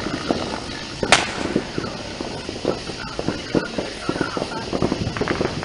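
A firework going off with one sharp bang about a second in, followed by a run of short, irregular crackles and clicks.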